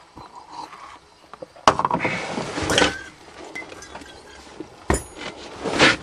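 Chrysler van's starter motor cranking the engine in two short bursts, each starting with a click, without the engine catching: the battery is running low on charge.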